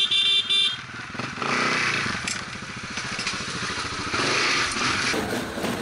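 Dirt bike engine running and revving, a dense run of firing pulses that swells in loudness twice, after a brief laugh at the very start.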